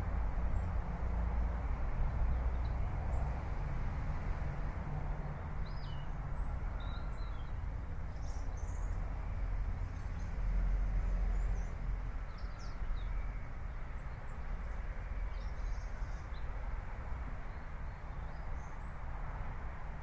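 Outdoor background noise with a steady low rumble, and faint, scattered bird chirps from about five seconds in.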